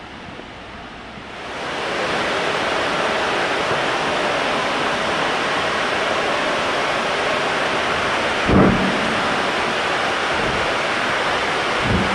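Ex-LMS Black Five 4-6-0 steam locomotive 44871 approaching under steam. Its noise swells into a steady rushing roar about one and a half seconds in, with a couple of short low thumps of wind on the microphone later on.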